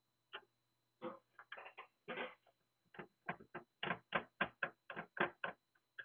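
A quick run of small clicks and taps from handling the NVR's sheet-metal case and the hard drive being screwed into it. They are scattered at first and come at about four a second in the second half.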